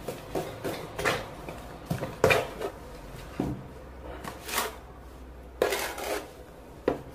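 Mortar being scooped and scraped on a perforated metal board, with metal clinking and scraping in several short separate strokes about a second apart.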